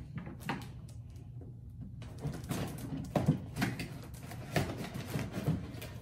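Cardboard toy box being handled and opened: scattered knocks, scrapes and rustles of the box and its flaps, with a quieter pause about a second in.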